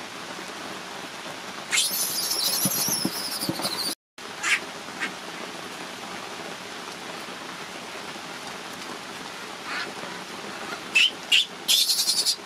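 Baby macaque crying in shrill, high-pitched screams over steady rain: one long falling scream about two seconds in, a few short cries after it, and another loud run of screams near the end.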